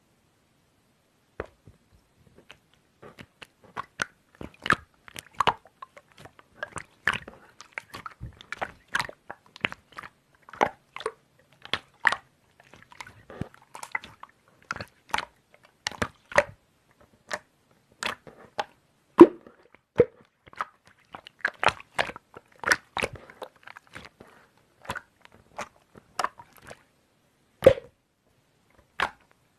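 Close, irregular crunching and clicking, a few sharp cracks a second with short gaps, the loudest about 19 and 28 seconds in.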